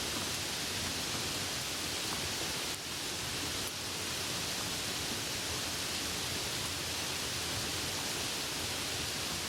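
Steady rain, an even hiss with no separate drops standing out, dipping slightly for a moment about three seconds in.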